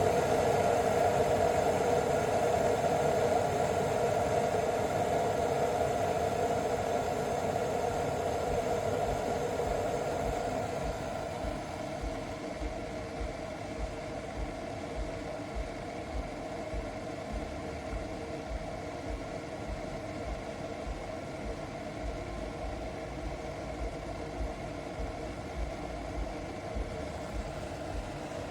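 Govee smart electric kettle heating cold water: a steady hiss and rumble from the water over the heating element, which drops to a quieter level about ten seconds in.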